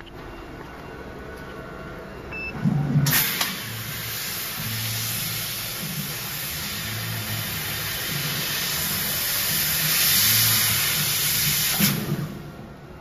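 300 W CO2 laser cutter cutting 1.5 mm stainless steel sheet. A loud, steady hiss from the cutting head starts suddenly with a thump about three seconds in and cuts off near the end, with a low, shifting hum from the moving head underneath.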